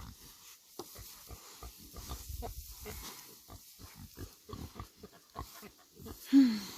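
Pigs grunting close by, with many short snuffling and rustling noises, and one louder short call falling in pitch near the end.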